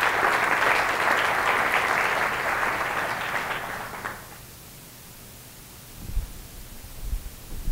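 Audience applauding at the end of a talk, with dense clapping that dies away about four seconds in. A few low bumps follow near the end.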